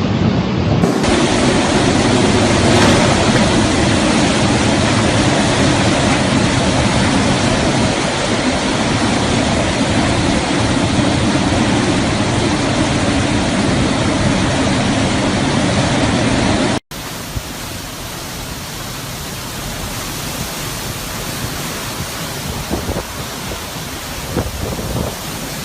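Hurricane wind and rain making a loud, dense, steady noise. It drops suddenly to a quieter stretch of the same kind of noise about 17 seconds in.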